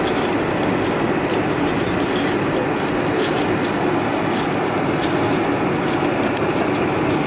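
Steady cabin rumble of a Boeing 747-400 taxiing: the engines and rolling landing gear heard from a window seat, with faint scattered clicks.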